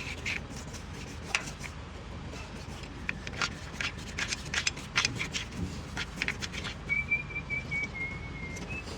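Scattered sharp clicks and clinks of hand tools being handled during repair work, then a thin whistled tone held for about two seconds near the end, drifting slightly lower.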